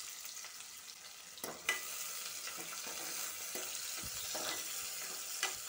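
Sliced onions sizzling in hot oil in an aluminium pressure cooker, stirred with a spatula that clicks and scrapes against the pot a few times. The sizzle picks up about a second and a half in.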